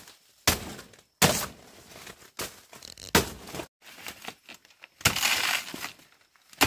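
Several sharp cracks and snaps, the loudest about half a second and a second and a quarter in, with smaller knocks after them and a crunching rustle lasting about a second near the end.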